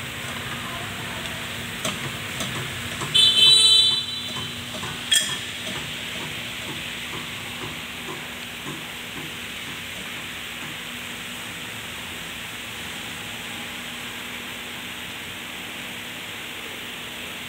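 Steady workshop background hiss with a faint low hum. A few sharp clicks come as parts on the front suspension are handled, and a short shrill tone sounds about three seconds in.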